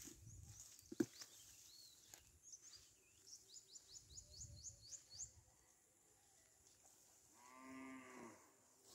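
Faint outdoor quiet with a sharp click about a second in, then a bird's quick run of about ten high chirps, each falling in pitch. Near the end a cow moos once, a call of about a second.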